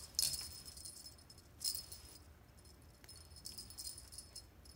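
Jingling rattle of a cat's fishing-pole wand toy as the cat bats and grabs at it. Two louder bursts of jingling, just after the start and about two seconds in, are followed by fainter, scattered rattles.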